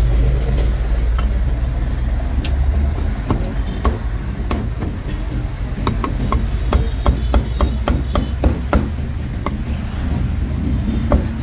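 Meat cleaver chopping roast pork on a thick round wooden chopping block: a run of sharp chops that begins a few seconds in and quickens to about three a second, with one last chop near the end.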